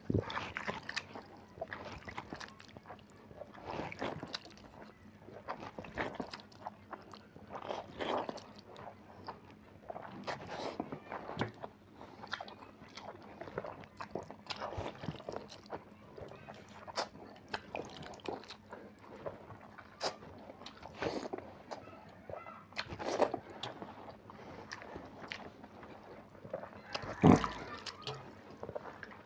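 A person eating soaked rice (pakhala) fast with his hand from a steel bowl: irregular wet chewing, slurping and squishing of the rice in its water, with one louder sharp sound near the end.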